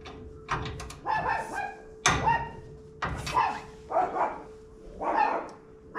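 A dog barking repeatedly, in short barks roughly once a second.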